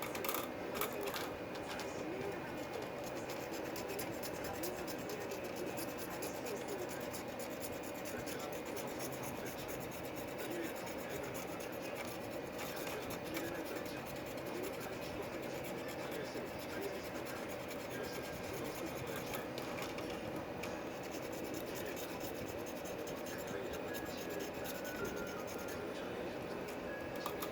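Light scratching and rubbing with small scattered clicks over a steady background hiss, the sound of small-scale handwork on filament and tubing.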